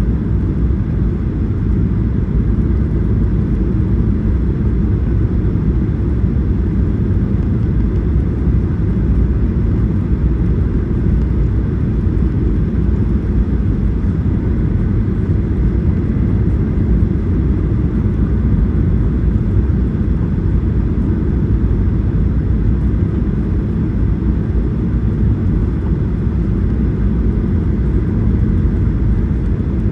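Passenger jet in flight: a steady low rumble of engines and rushing air, with no change in pitch or level.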